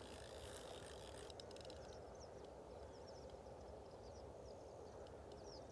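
Near silence: faint outdoor ambience, a steady low hiss with many small, high chirps of distant birds from about two seconds in.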